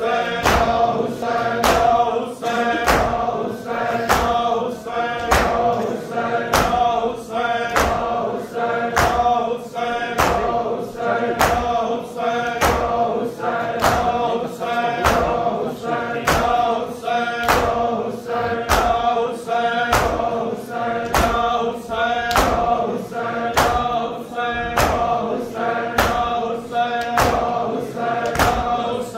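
Men chanting a Shia noha (lament) together, with the steady, even beat of many hands striking bare chests in matam, about three strikes every two seconds.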